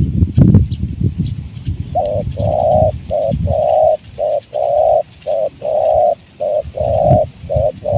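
Spotted dove cooing: a run of about six short-then-long coo pairs beginning about two seconds in. Before it, low rustling and wind noise on the microphone.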